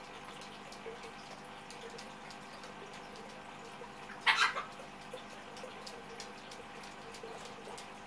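African grey parrots preening each other: soft scattered beak clicks and nibbling over a faint steady hum. About halfway through comes a single brief, loud, raspy sound.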